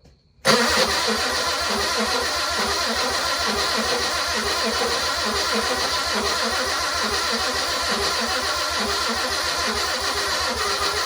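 A BMW E30's engine comes in abruptly about half a second in and keeps going steadily, with an even low pulse under a hissy mechanical sound.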